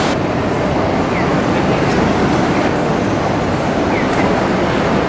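Loud, steady din of heavy city traffic, a dense rumble with no single event standing out.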